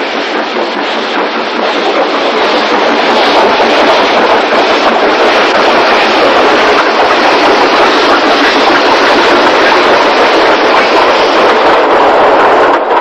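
Narrow-gauge steam train running: a dense, loud noise that grows over the first few seconds, holds steady, then cuts off suddenly near the end.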